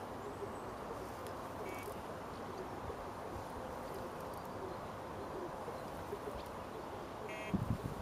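Steady outdoor lakeside ambience with a few short, high bird calls. Near the end, wind starts buffeting the microphone in loud low rumbles.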